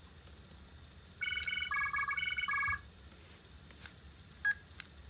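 Minnie Mouse toy phone playing a short electronic ringtone tune of about six quick beeping notes, set off by pressing its buttons. A few clicks and a single short beep follow near the end.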